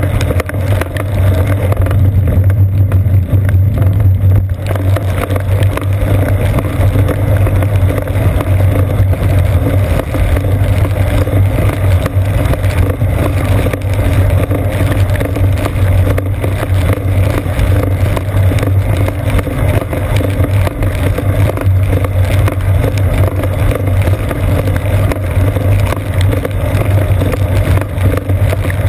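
Steady low drone and rushing noise of a bicycle riding a wet road in heavy rain, picked up through a seat-post-mounted GoPro Hero 2's waterproof housing: wind, rain and tyre spray together, with no break.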